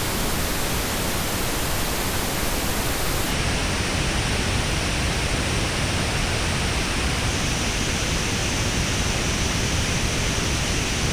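Steady pink noise test signal played through earbuds and picked up by an artificial ear. About three seconds in, the treble changes abruptly and the highest hiss drops away, as the test moves on to the other earbud's response.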